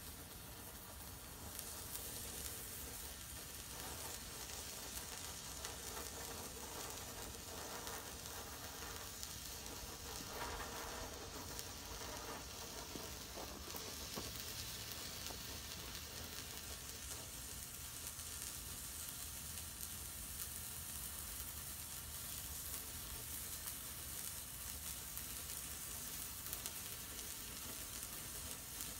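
A large white flare of potassium nitrate, sulfur and flake aluminium composition burning with a steady sizzling hiss.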